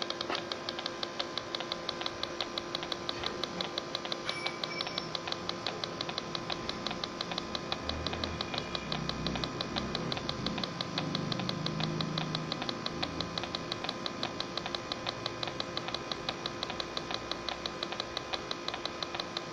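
Electronic refrigerant leak detector ticking in a fast, even rhythm over a steady electronic hum. This is its search-mode ticking as it is held near the cylinder's valve and hose fittings, without its rising-and-falling alarm sounding.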